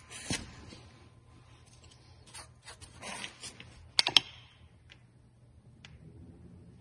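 Hands handling metal parts at a cold saw's vise: light scraping and shuffling, then two sharp metallic clicks close together about four seconds in, followed by a few faint taps. The saw itself is not running.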